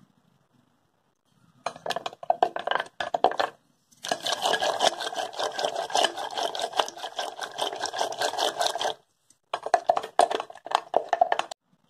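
Wooden spoon stirring lassi with ice cubes in a bowl: rapid clinking and scraping of ice and spoon against the bowl. It starts after a short quiet and comes in three spells with two brief pauses.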